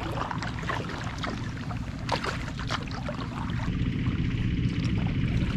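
Kayak paddle strokes, the blades splashing and dripping in the water, over a steady low rumble of wind on the microphone.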